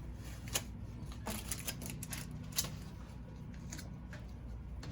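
Strips of tape being torn off the roll and pressed down, a run of short, crackly rips and taps, most of them in the first three seconds, over a low steady hum.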